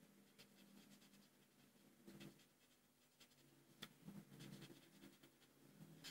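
Faint felt-tip marker strokes on paper as a small shape is coloured in, short light scratches that come a little more often in the second half.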